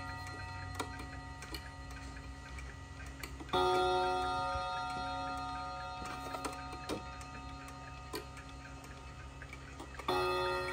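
Seikosha 14-day spring-wound wall clock striking on its gongs as the hands are turned by hand: one stroke about a third of the way in that rings on and slowly fades, and another stroke near the end, with the clock's ticking and light clicks between.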